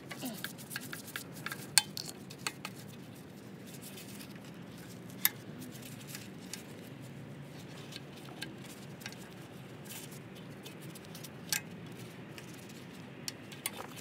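Small metallic clicks and clinks as gloved hands work the throttle linkage and spring loose from a Briggs & Stratton engine's carburetor. A quick run of clicks in the first couple of seconds, then single sharp clicks every few seconds, over a faint low background hum.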